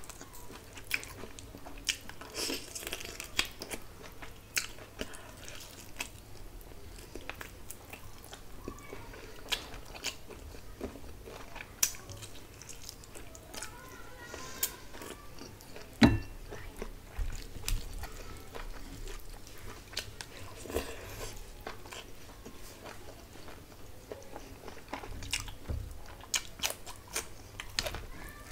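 Close-miked eating: a person chewing and biting mouthfuls of rice and meat curry eaten by hand, with wet mouth clicks and crunches at irregular intervals. One louder thump comes about halfway through.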